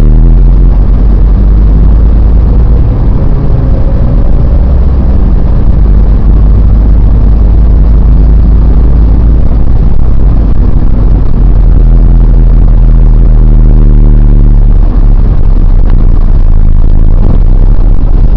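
Car engine and road noise heard inside the cabin while driving: a loud, steady low drone.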